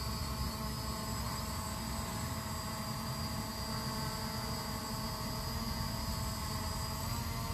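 SG906 Pro quadcopter's propellers whining steadily in flight, a high tone holding nearly level over a hiss.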